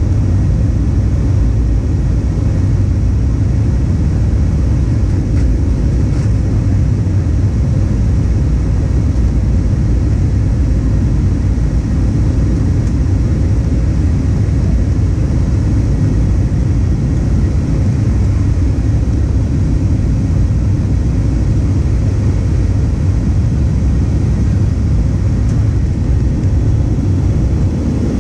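Airbus A320 in flight, heard inside the cabin at a window seat: a loud, even rumble of engine and airflow noise, mostly low in pitch and unchanging throughout.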